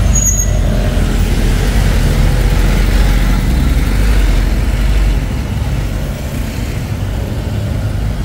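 City street traffic, mostly motor scooters running close by, with a steady low rumble that eases about five seconds in.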